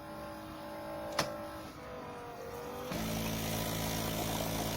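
Philips Saeco PicoBaristo super-automatic espresso machine running an espresso cycle: a steady motor hum with a sharp click about a second in, then a louder, lower hum from about three seconds in.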